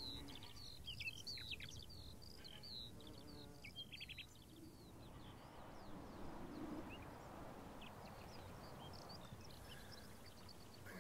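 Faint dawn ambience: small birds chirping in quick short calls during the first four seconds, then fading into a soft, even hiss.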